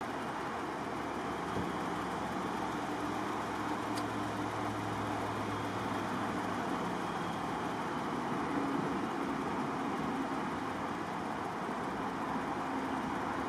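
Steady highway traffic noise, an even rush of tyres with faint engine hum from passing vehicles rising and fading.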